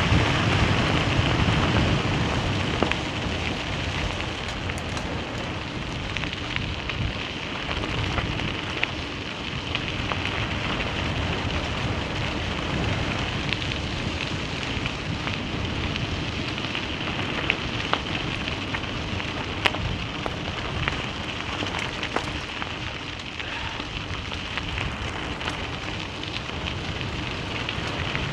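Tyres rolling over a loose gravel road: a steady crunching rumble with many small clicks and pings of stones thrown up, a little louder in the first couple of seconds.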